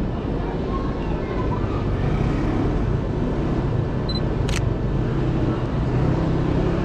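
Sony A6000 shutter clicking once about four and a half seconds in, just after a short high focus-confirmation beep, over the steady hum of a busy city street.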